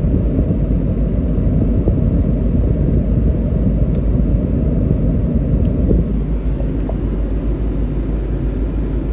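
Steady rush of hot air from the 2000 Land Rover Discovery's dash vent with the heater blower running, over the idling engine; the rush drops a little about six seconds in.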